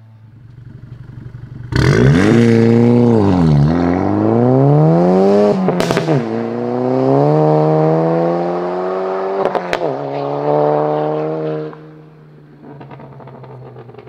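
2015 VW Golf GTI Performance's turbocharged 2.0-litre four-cylinder accelerating hard through the gears, heard through an aftermarket valved turbo-back exhaust, closed at first and opened about six seconds in. The engine note comes in suddenly, climbs, and drops three times at upshifts of the manual gearbox, then falls away with a few faint crackles near the end.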